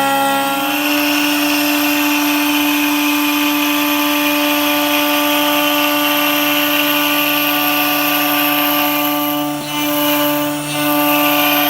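CNC wood router running: a steady whine from its spindle with the hiss of the bit cutting wood. The tone shifts slightly about a second in, and the sound dips briefly twice near the end.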